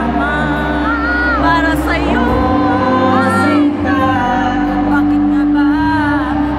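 Live pop music: a male lead voice singing a held, gliding melody over steady backing music, heard through a hall's PA system.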